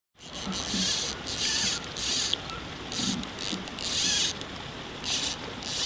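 Fly reel's click-pawl drag buzzing in about eight short, irregular bursts as fly line is pulled off the reel.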